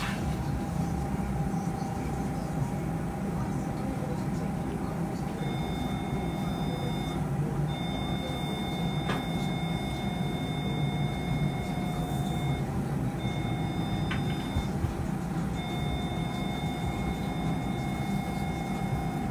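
Electrosurgical (cautery) generator tone sounding in four stretches, the longest about five seconds, as the pen-style handpiece is switched on and off. Under it runs a steady hum and hiss of operating-room suction or smoke evacuation with a constant lower tone.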